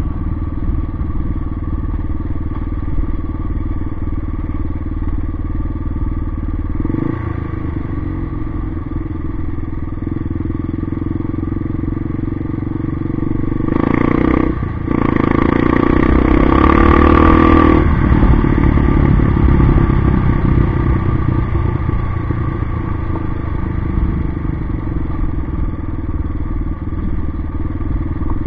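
Yamaha XT 600's single-cylinder four-stroke engine running under way, changing pitch about seven seconds in. About halfway through it gets louder for a few seconds with a brief drop near the start of that stretch, then settles back to a steady cruise.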